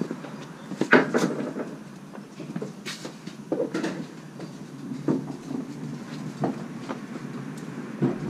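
Irregular knocks and clinks of tools and metal parts being handled during a dirt bike oil change, about eight in all, the loudest about a second in.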